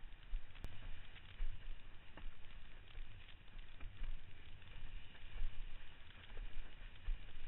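Wind buffeting the microphone in gusts over the rush and splash of water against a windsurf board moving through choppy water.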